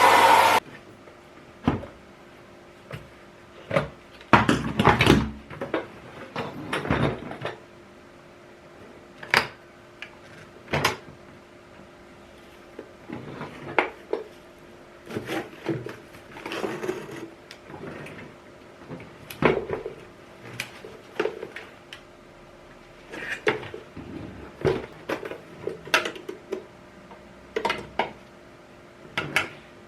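Kärcher VC 2 vacuum cleaner motor cutting off half a second in. Then irregular knocks, clicks and rattles of hard parts being handled, some in quick clusters, over a faint steady hum.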